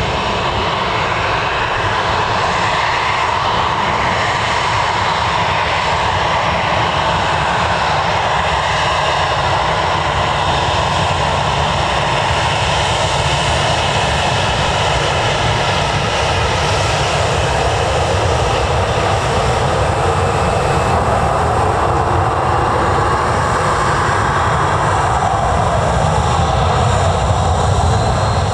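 Fixed-wing airliner's engines running loud and steady at close range, with a faint high whine over the rush, swelling slightly near the end.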